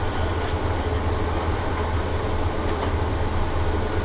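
Cabin noise of an Airbus A350-900 taxiing: a steady low rumble from its Rolls-Royce Trent XWB engines at taxi power and the wheels rolling over the taxiway, with a faint steady whine and a few light knocks.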